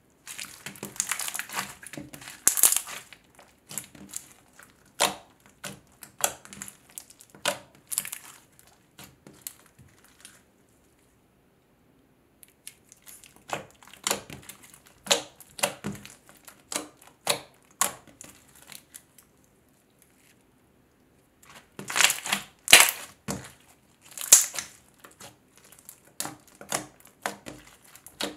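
Clear slime packed with fishbowl beads being squished and pressed by hand: crackling, popping clicks in quick clusters, with two short pauses about ten and twenty seconds in.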